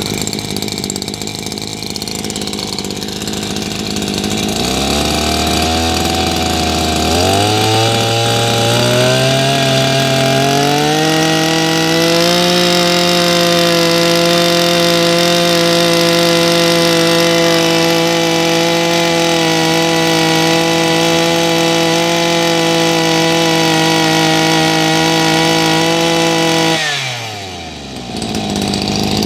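Maruyama MB2300 brush-cutter engine, a small two-stroke, ticking over at idle, then revved up in a few quick steps on the carburettor throttle and held at a steady high speed for about fifteen seconds before dropping sharply back toward idle near the end. It picks up smoothly and runs and fires very evenly.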